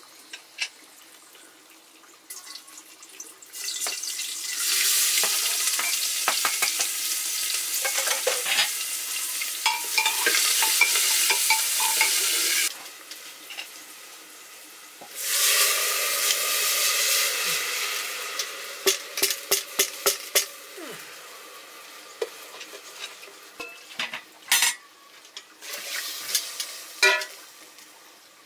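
Food sizzling in hot oil in a pan while a metal spoon stirs and scrapes against it. The sizzle flares up suddenly twice, about three and a half seconds in and again about fifteen seconds in. It cuts off sharply in between and fades out near the end, leaving the spoon's clicks and scrapes.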